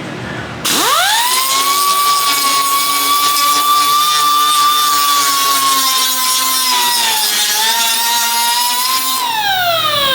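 Electric angle grinder spinning up to a steady high whine, dipping briefly in pitch about seven seconds in, then winding down with a falling whine near the end.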